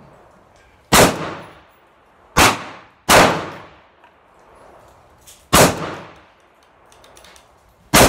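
AR-15 rifle fired in single shots, five in eight seconds at uneven gaps, each shot trailing off in a short echo.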